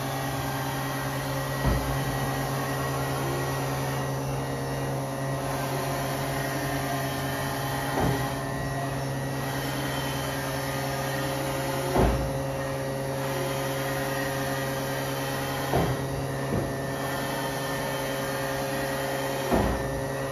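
Haas VF-6/40 CNC vertical machining center running, a steady hum of motors with several fixed tones, while its table traverses along the X axis. Six short thumps come at uneven intervals.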